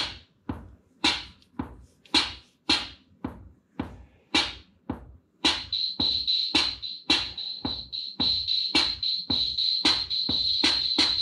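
Roland CR-78 analog drum machine playing back a freshly programmed user pattern of bass drum and snare hits, evenly spaced at a little under two a second. About halfway through, a continuous high, rapid layer from the machine's added preset voices comes in under the drum hits.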